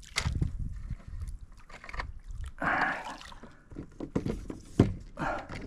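Water splashing and sloshing as a hooked fish thrashes at the surface beside a kayak, with irregular knocks and clicks of handling against the hull, a burst of splashing about three seconds in and one sharp knock near the end.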